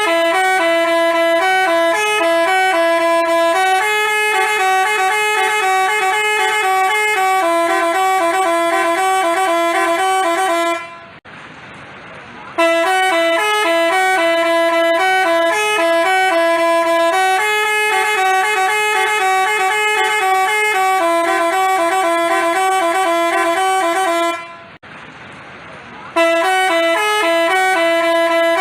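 Telolet basuri multi-tone bus horn playing a tune in held, stepped notes. The same phrase repeats three times, with a short break about a third of the way in and another near the end.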